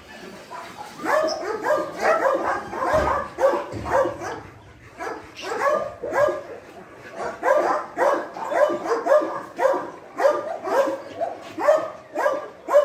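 A dog barking repeatedly, in runs of quick barks with short pauses between them.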